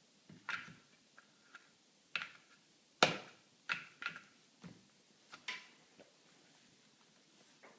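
About a dozen irregular light clicks and knocks of hard items being handled, the sharpest about three seconds in.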